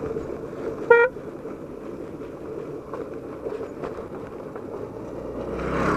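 Motorcycle on the move: steady engine and road noise, with one short horn beep about a second in.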